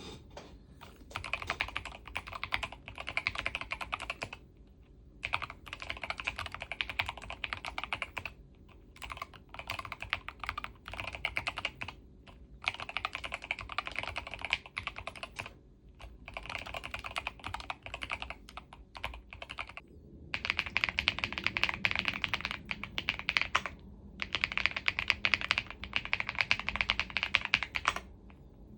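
Fast typing on computer keyboards, in runs of a few seconds broken by short pauses. About two-thirds of the way in the sound changes to louder, fuller typing, as a different keyboard is taken up.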